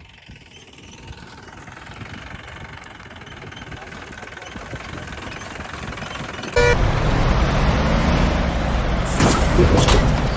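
A faint, slowly rising hum, then about six and a half seconds in a vehicle engine sound starts suddenly with a click and runs loudly, with short hissing bursts near the end.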